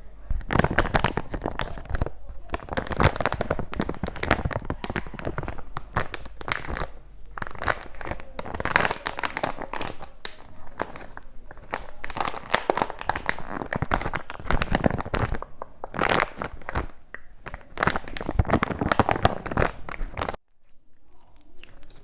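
Packaging crinkled and torn open close to the microphone: dense, irregular crackling with sharp clicks, breaking off briefly near the end.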